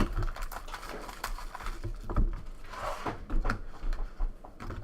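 Trading-card box being opened and its packaging handled: rustling and scraping with a few sharp clicks and knocks.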